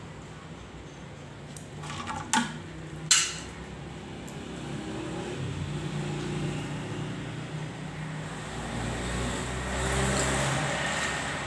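Dogs growling low and continuously during a standoff. The growling swells near the end, and two short sharp snaps or yaps come about two and three seconds in.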